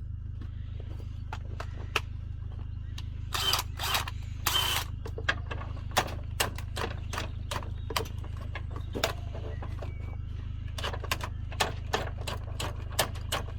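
A run of sharp, irregular metallic clicks, with a few short rattling bursts about three and a half to five seconds in, from hand tools and a cordless drill working on a stuck fastener. A steady low hum runs underneath.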